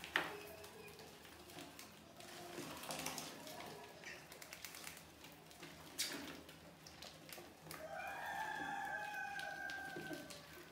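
Rats scrabbling and clicking on a plastic bucket and ramp, with a sharp knock just after the start and another about six seconds in. About eight seconds in, a rooster crows once for about two seconds.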